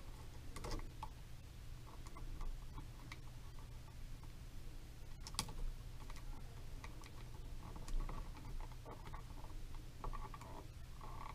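Faint, irregular small clicks and rustles of hands twisting stiff electrical wires and a plastic twist-on wire connector in a wall switch box, over a steady low hum.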